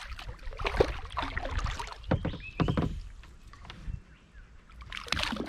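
A small hooked sooty grunter splashing at the surface beside a kayak as it is brought to hand, with a run of short splashes and knocks against the hull.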